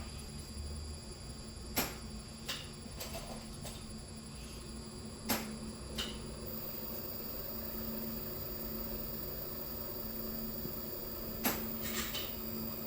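Yaskawa A1000 inverter test rig running with a steady electrical hum and whine, its high whine stepping up in pitch about halfway through. A few sharp clicks break in, two near the start, two around five to six seconds in, and two near the end.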